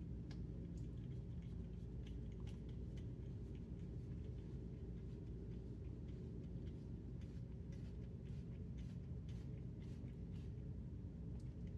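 A steady low hum with scattered faint clicks and taps, like small parts being handled.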